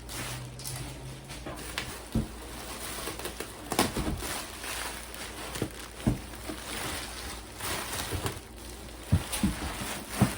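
Rustling and crinkling of packaging being handled in a gift box, with scattered light knocks and thuds.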